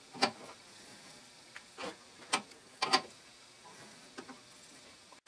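An adjustable wrench turning a large ACME tap by hand as it cuts a thread in cast iron: about half a dozen sharp clicks and ticks at uneven intervals, the loudest near the middle, as the wrench is worked and shifted on the tap.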